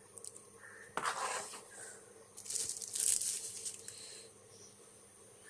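Packaging being handled, crinkling and rustling in two bursts: a short one about a second in and a longer, brighter one midway.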